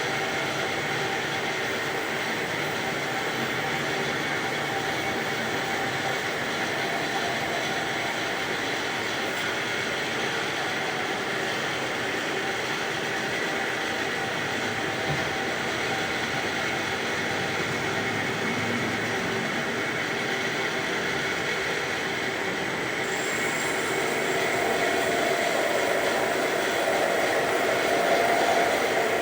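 A machine running steadily with a constant hum and a few steady tones, growing a little louder about three quarters of the way through.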